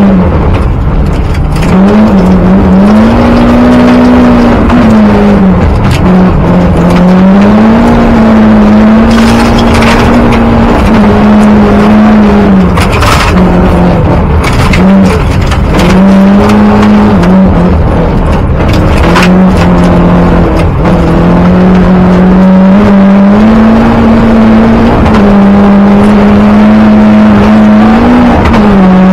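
Group A rally car engine under hard load, heard loud from inside the cabin: the revs climb and drop again and again as the driver shifts up and down through the gears. Road and gravel noise underneath, with a few sharp clatters.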